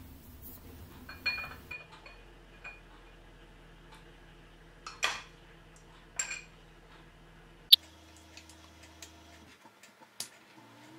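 Glassware being handled on a stainless steel tray: a few scattered clinks and knocks of glass bottles, a glass bowl and a spoon, the sharpest and loudest clink about eight seconds in.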